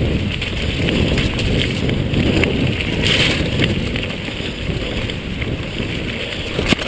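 Mountain bike descending a wet gravel forest trail at speed: a steady rumble of tyres over wet ground and wind buffeting the GoPro's microphone, with the bike rattling over bumps. A brief hiss comes about three seconds in and a sharp knock near the end.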